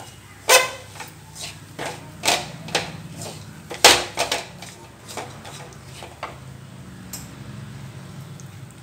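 Wooden spatula scraping and knocking against a stainless steel kadai while a dry, crumbly coconut, jaggery and peanut filling is stirred, in irregular strokes about once a second. A faint steady hum runs underneath.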